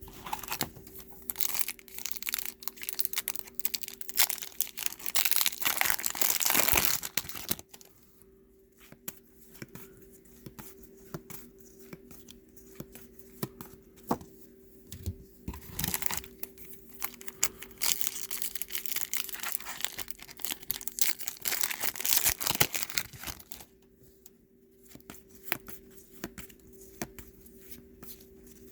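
Trading card pack wrappers being torn open and crinkled, with cards handled between. The tearing and crinkling comes in loud stretches, about half a second in to seven seconds, briefly near sixteen seconds, and again from about eighteen to twenty-three seconds, with softer rustling and light clicks in between.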